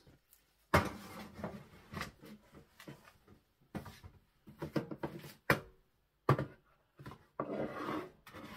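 Tins and storage boxes knocking and scraping on wooden shelves as they are handled: a string of separate knocks and clatters, then a longer scrape near the end.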